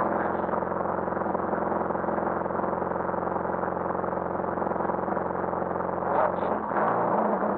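Volvo 240 Turbo rally car's engine idling steadily, heard from inside the cabin, with a brief louder surge about six seconds in.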